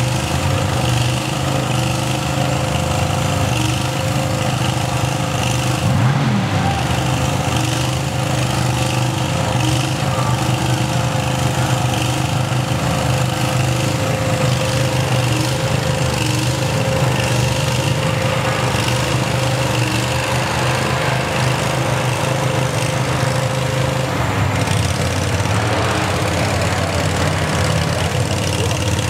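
Engine of a custom monster lawn mower running steadily as the mower pushes through pond water. Its tone changes near the end.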